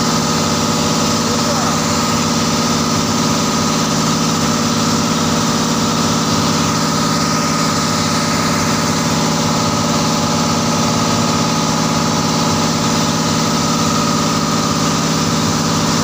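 Boat engine running steadily: a constant, unchanging drone with a steady hum.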